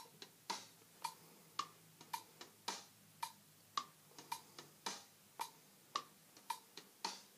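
A simple drum beat from the GarageBand iPad app's classic studio kit, playing faintly through the iPad's small speaker: a steady click about twice a second, every other hit stronger, with an occasional lighter hit in between.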